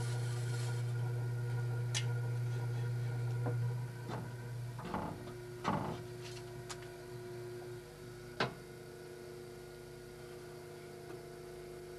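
Potter's wheel running with a steady low motor hum that drops away about four seconds in, leaving a fainter hum, with a few short sharp knocks of hands and tools on the wheel and clay.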